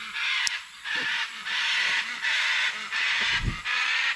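Harsh, grating bird squawks repeated about six times in quick succession, each call drawn out for around half a second to a second.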